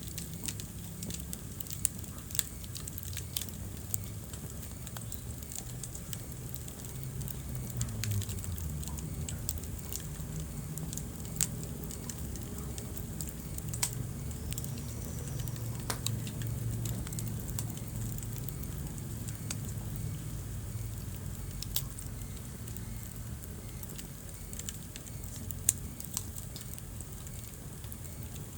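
Wood fire burning in a fireplace: a steady low rumble of the flames with scattered sharp crackles and pops of burning logs.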